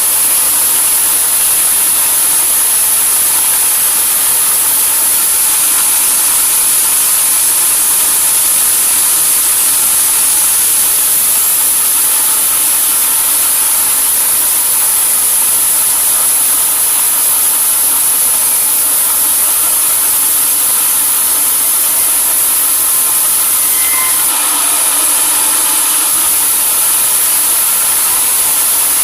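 Sawmill machinery running steadily: a loud, continuous mechanical noise with a steady high-pitched whine.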